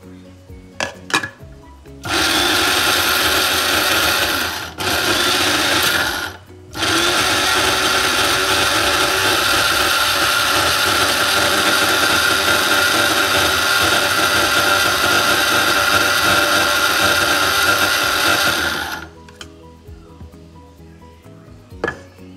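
Breville coffee and spice grinder's 200-watt blade motor running with the press-and-hold lid pushed down, grinding spices. A few light clicks come first; then the motor runs in two short pulses with brief cut-outs, and then steadily for about twelve seconds before it stops.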